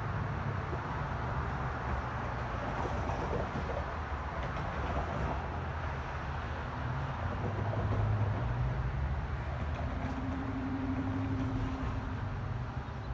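Train at a station: a steady low rumble and hum that swells slightly past the middle, with a higher tone joining in for about two seconds near the end.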